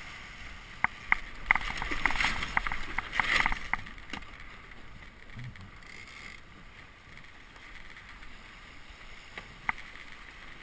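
Melges 17 sailboat changing tack: for a few seconds the sails flap and the rigging gives a run of sharp clicks and rattles as the boom comes across. After that comes a steady rush of wind and water along the hull, with one more click near the end.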